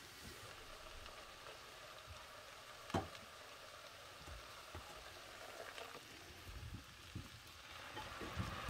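Quiet kitchen handling sounds over a faint hiss: one sharp knock about three seconds in, then a few softer taps near the end, like utensils against a bowl.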